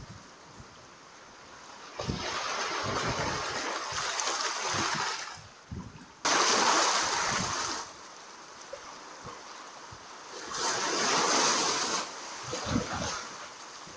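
Small sea waves breaking and washing over rocks and pebbles at the shoreline, coming in several surges of hissing wash; the loudest starts abruptly about six seconds in.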